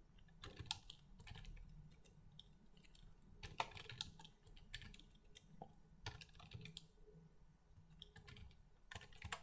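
Faint computer keyboard typing in short bursts of a few keystrokes, with pauses between them.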